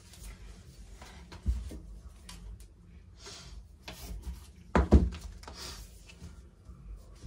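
Rulers being set down and slid on a cloth-covered cutting table while fabric and a tape measure are handled: a knock about a second and a half in, a louder double knock about five seconds in, and brief rustles between.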